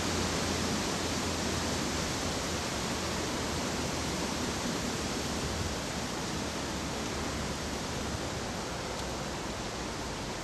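A steady, even hiss of noise with no distinct events in it.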